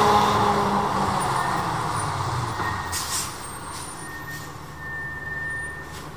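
Fire engine driving away, its engine sound fading steadily over a few seconds, with brief hisses about three seconds in.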